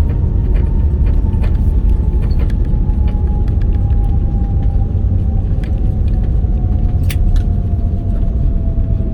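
Jet airliner cabin noise on the ground after landing: a loud, steady low rumble from the wheels and engines, with an engine whine slowly falling in pitch as the aircraft slows. Scattered light rattles from the cabin.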